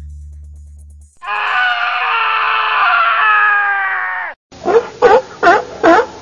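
Music fading out, then a long held high-pitched cry lasting about three seconds. After a short break comes a quick run of short, loud calls, about three a second, each dipping and rising in pitch.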